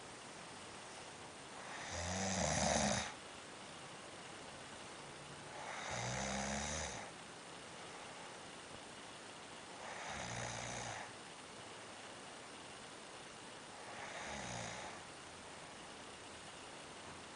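A sleeper snoring heavily. Four snores come about four seconds apart, the first the loudest.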